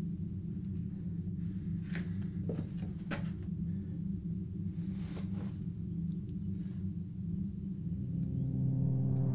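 Steady low rumbling drone of a film soundtrack's ambience, with a few faint clicks and rustles. Near the end a layered tone swells up, then everything cuts off abruptly.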